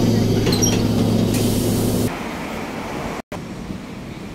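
Bus engine drone heard inside the cabin, with a few short high squeaks about half a second in. About two seconds in it cuts off abruptly, giving way to quieter street traffic noise after a brief dropout.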